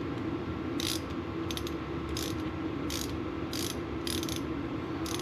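Ratchet wrench tightening a brake caliper bolt, its pawl clicking in short runs on each back-swing, about once every second or less.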